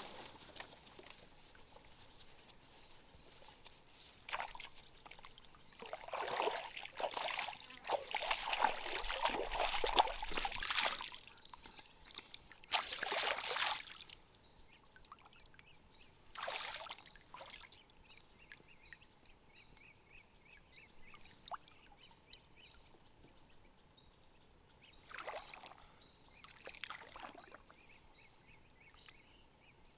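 Water splashing and sloshing as a person wades and moves through shallow lake water: a stretch of repeated splashing in the first half, then a few short, separate splashes.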